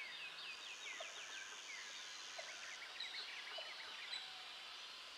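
Birds singing faintly: a quick run of falling whistled notes, then a burst of short up-and-down chirps about halfway through.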